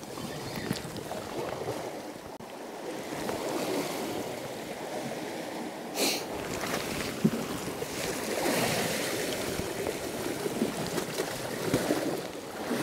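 Sea swell surging and washing over rocks and kelp, with wind buffeting the microphone; a short hiss about six seconds in.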